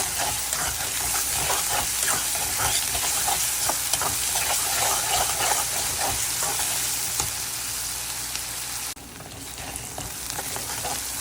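Onion, garlic paste and ginger paste sizzling in hot oil in a pan, stirred with frequent scrapes and clicks against the pan as the masala is fried down. The sizzle drops suddenly quieter about nine seconds in.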